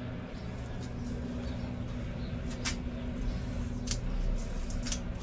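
A steady low hum with a few sharp clicks from a plastic adhesive cartridge being handled.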